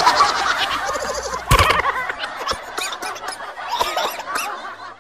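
A woman laughing, with a knock about a second and a half in.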